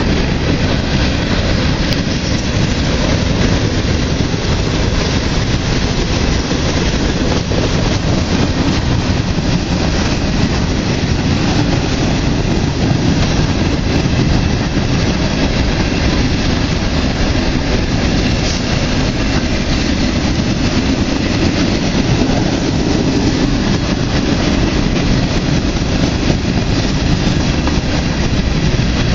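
Freight train of covered hopper cars rolling past close by: a steady rumble and rattle of steel wheels on the rails.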